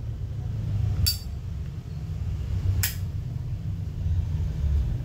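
Two sharp metallic clicks from a vintage Zippo lighter being handled, the first, about a second in, with a short bright ring, the second near three seconds in, over a steady low hum.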